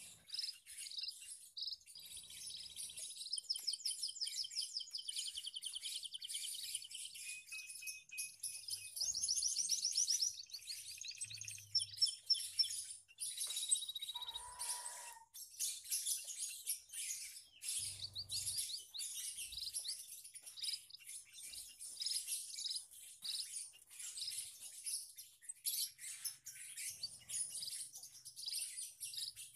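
A mixed flock of munias and other small finches chirping and twittering continuously, with fast trilled runs around three to five seconds in and again around nine to ten seconds in.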